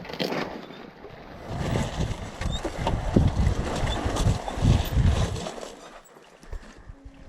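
Wind buffeting the microphone with a low rumble from riding over rough ground, loudest through the middle and dying down near the end.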